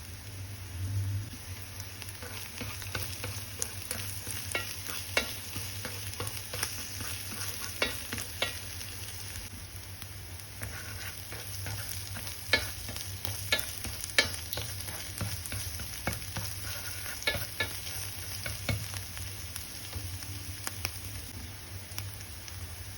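Food frying in a hot pan, sizzling steadily while a spatula stirs it, with scattered sharp clicks of the spatula striking the pan.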